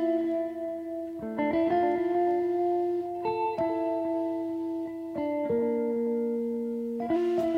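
Background music: plucked guitar notes picked out slowly, each ringing on until the next.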